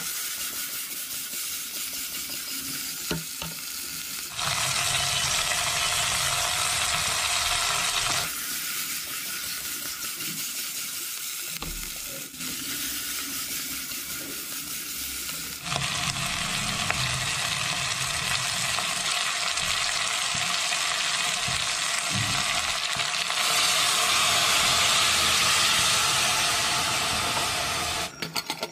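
Fatty smoked pork and onions sizzling as they fry in a pressure cooker pot, a steady sizzle that changes level abruptly a few times. Near the end, a few metal clicks as the pressure cooker lid goes on.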